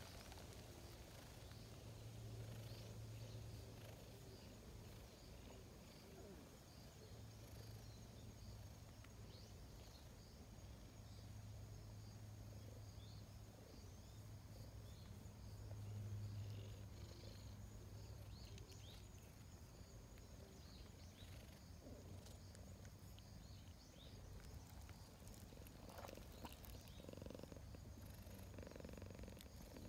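Black cat purring faintly and low while it is stroked, the purr growing stronger and weaker in stretches.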